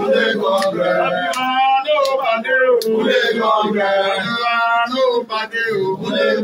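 A man singing a chant, his voice carrying on with few breaks.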